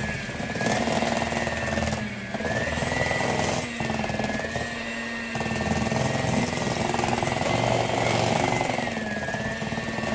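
Electric hand mixer running steadily, its beaters working through thick tea cake batter in a metal bowl, with a whining motor tone that wavers slightly and dips briefly a couple of times.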